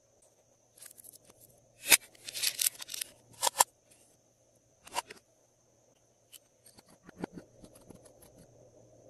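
Small plastic toy containers handled: a sharp click about two seconds in, followed by a short rattling burst, then more sharp clicks. Near the end come lighter ticks and a few soft crackles as fingers press into glitter on the slime.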